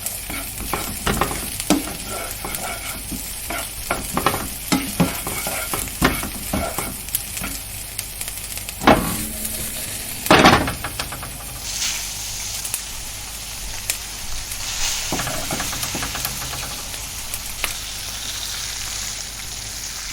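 Fish sizzling as it fries in a pan, with frequent clinks and knocks of a utensil stirring and turning it against the pan.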